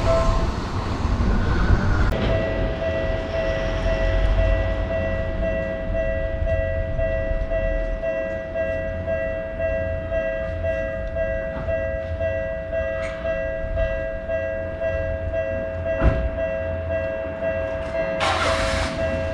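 Level-crossing alarm ringing steadily, starting sharply about two seconds in, over the low rumble of a train running past. A short loud burst of noise comes near the end.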